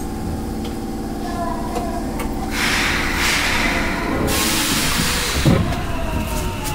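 Osaka Metro 10 series subway train standing at the platform, its onboard equipment giving a steady electrical hum. Two loud bursts of compressed air hiss out in the middle, followed by a few low knocks.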